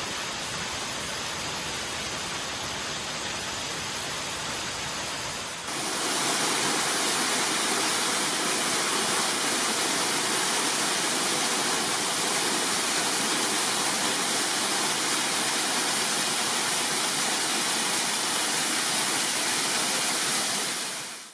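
Waterfall in heavy flow, a steady rush of falling water; about six seconds in it jumps louder and fuller, then cuts off abruptly at the end.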